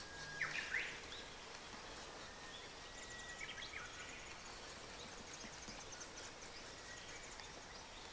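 Faint outdoor ambience: a couple of short bird chirps about half a second in, then a fast, high-pitched insect ticking from about three seconds on.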